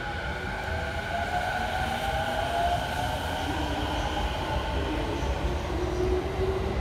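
JR 209 series 500-subseries electric commuter train pulling away from the platform and accelerating. Its traction motors give a whine that slowly rises in pitch over a low rumble of wheels on rail, growing louder about a second in.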